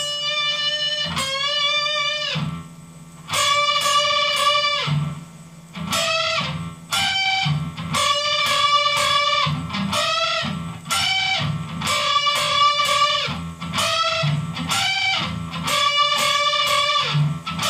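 Electric guitar through a small amp playing a lead riff of double-stop bends: two notes struck together on adjacent strings, the upper one bent up in pitch, repeated in short phrases.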